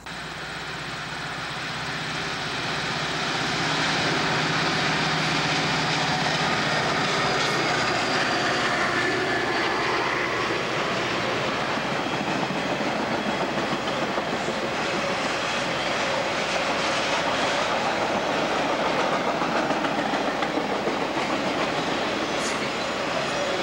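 A CSX diesel locomotive approaches and passes, its engine sound building over the first few seconds. The train's highway trailers then roll past steadily on low Iron Highway platform cars, a continuous wheel-and-rail rumble with rail-joint clatter.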